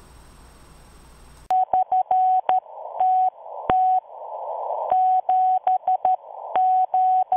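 Faint room hum for about a second and a half, then a single steady beep keyed on and off in short and long pulses like Morse code, alternating with bursts of radio static.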